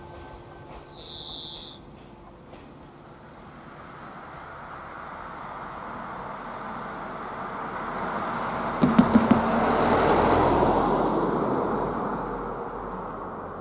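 A car approaching and driving over a railway level crossing: its tyre noise builds to a peak about ten seconds in, with a quick run of thumps about nine seconds in as the wheels go over the rails.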